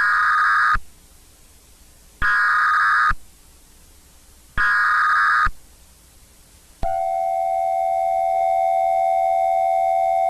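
Emergency Alert System signal: three short buzzy bursts of SAME header data, each just under a second long and about two seconds apart. About two-thirds of the way in, a loud, steady EAS attention tone begins and holds.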